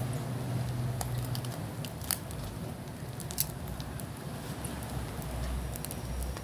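Charcoal fire crackling under fish on a wire grill, with scattered sharp pops, the two loudest about two and three and a half seconds in. A low steady hum stops about a second and a half in.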